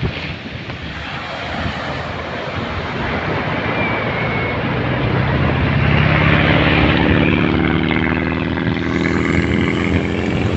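A dune buggy's engine passing on the beach, its drone coming in and growing louder from about halfway through, over the steady wash of wind and surf.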